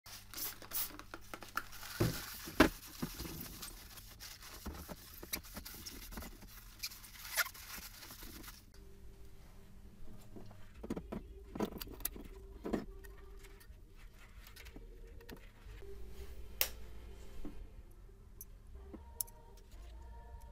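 Hands handling small metal and plastic headlight projector parts on a tabletop: scattered clicks, taps and light rattles over a faint hiss, brighter in the first third.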